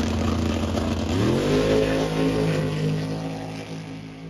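A drag race car's engine goes from a low rumble to a quick rise in pitch about a second in, then holds a high, steady pitch as the car accelerates away, fading toward the end.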